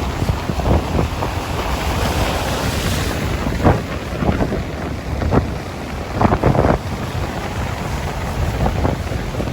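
Sea waves washing on a shore, with wind buffeting the microphone as a heavy, gusting rumble. Several short, sharper splashes stand out between about four and seven seconds in.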